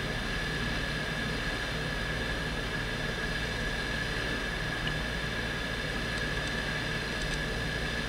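Steady background hiss and hum with a constant high whine and no distinct events.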